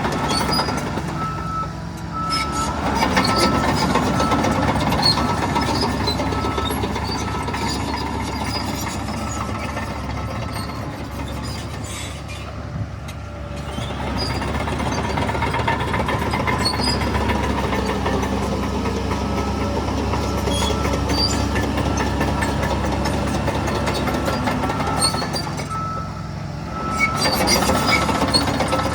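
Heavy diesel earthmoving machinery running, with a reversing alarm beeping at the start and again near the end.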